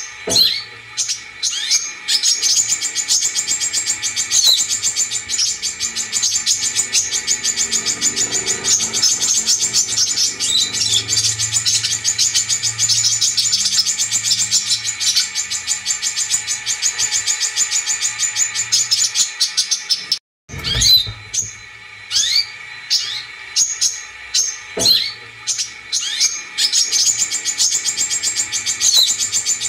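Brown-throated sunbird (kolibri kelapa) song: a long, fast, high-pitched trill of rapid chattering notes. It breaks off abruptly for a moment about two-thirds through, then returns as separate sharp chirps with short pauses.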